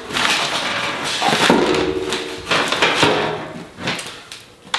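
Two large stamped-steel replacement floor pans for a Porsche 912 being handled and fitted together: the sheet metal flexes and rattles, with scrapes and knocks as the panels shift and a brief metallic ring in the middle.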